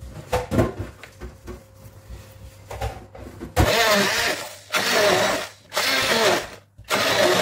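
Kitchen knife chopping pumpkin peel on a plastic cutting board: a quick, irregular run of knocks. From about halfway, several louder bursts of a hissing sound with a wavering pitch come in and drown out the chopping.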